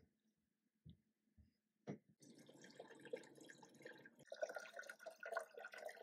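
A few footsteps on a wooden floor, then water poured from a ceramic pitcher into a humidifier's water tank, splashing and running steadily for about four seconds before stopping.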